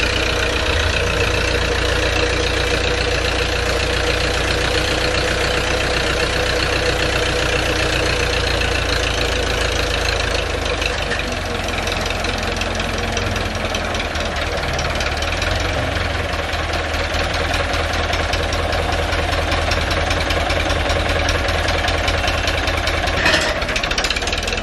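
Massey Ferguson tractor's diesel engine running steadily under load, belt-driving two tubewell pumps, with water gushing from the outlet pipes into a concrete tank. A brief knock sounds near the end.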